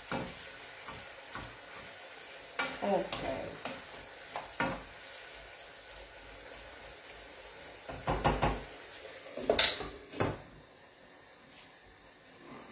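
A wooden spoon stirring pasta in a non-stick frying pan, with scrapes and knocks of the spoon against the pan in several short spells and a faint sizzle from the pan underneath. The sharpest knock comes a little before the last quarter.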